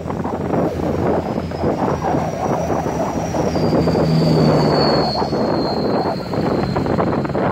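Road and engine noise of a vehicle driving through town traffic. A faint, high thin whine slides slightly down in pitch from about two seconds in until about six seconds in.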